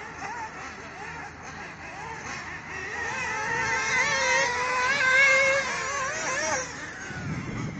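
Radio-controlled off-road buggies running on a dirt track, their motors making a high-pitched, wavering whine that rises and falls with the throttle. One car comes close and is loudest from about three to six and a half seconds in, then drops away.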